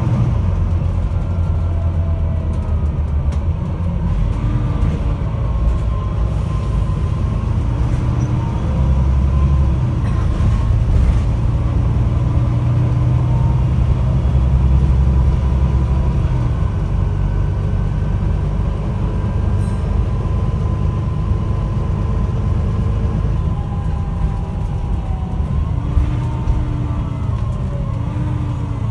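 Volvo B9TL double-decker bus's diesel engine and drivetrain heard from inside the moving bus: a heavy low rumble with whining tones that slowly rise and fall as it pulls along, easing off slightly near the end.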